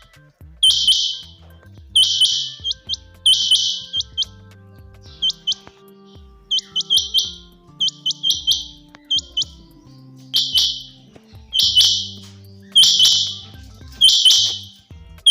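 Female rain quail calling: a series of short, scratchy calls about once a second, with a run of shorter, clipped notes in the middle.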